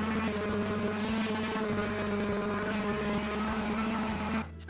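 Electric random orbital sander running steadily as it sands carved wood, a pitched motor hum that cuts off abruptly near the end.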